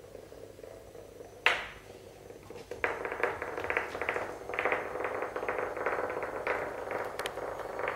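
Hexbug Nano vibrating toy bug buzzing and skittering across a hardwood floor, its bristle legs rattling in a fast, dense ticking. A single sharp click comes about a second and a half in, and the rattle grows louder from about three seconds in.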